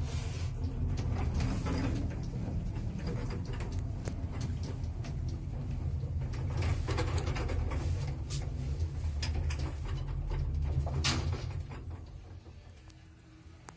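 1977 Zremb passenger lift car travelling, with a steady low rumble and scattered rattling clicks. About eleven seconds in there is a sharp click, and the rumble then dies away as the car comes to a stop.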